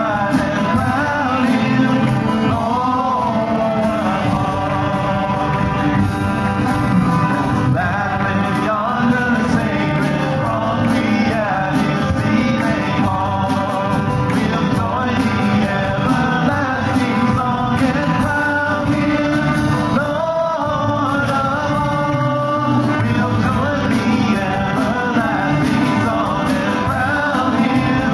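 Church worship band performing a song: a man and women singing together into microphones over acoustic guitar.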